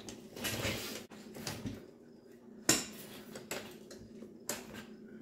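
Metal clinks and knocks from a wheel being worked on the steel axle of an upturned garden cart: about five separate clanks, the loudest a sharp knock a little past halfway.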